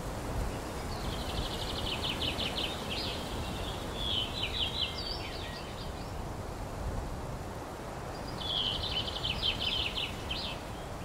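A songbird singing a rapid trilled phrase three times: about a second in, around four seconds in, and near the end. Under it runs a steady low outdoor rumble.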